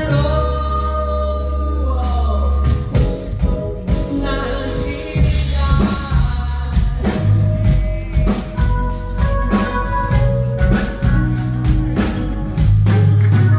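Band playing live: drums, bass and a melodic lead line carry on steadily, with no words sung.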